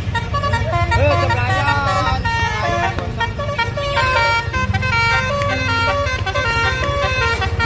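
Telolet bus horn: a multi-tone musical air horn on a bus playing a quick stepping melody of many short notes, over a steady low engine rumble.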